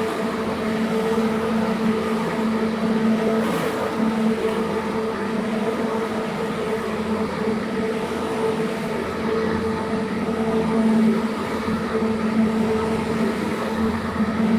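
Carpet-cleaning machine running steadily, a constant motor hum with a higher overtone over a noisy wash.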